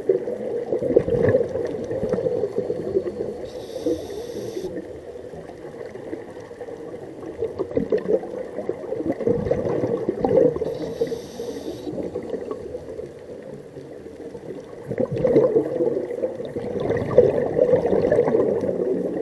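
Scuba diver breathing through a regulator underwater. Long bubbling exhalations alternate with short hissing inhales, the inhales about four seconds in and again about eleven seconds in.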